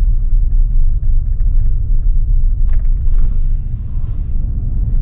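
Steady low rumble of road and engine noise inside the cabin of a Nissan Patrol Y62 driving across a bridge.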